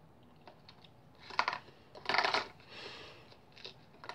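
Small cardboard box being handled in the hands: a few light clicks and taps with two or three short scraping rustles.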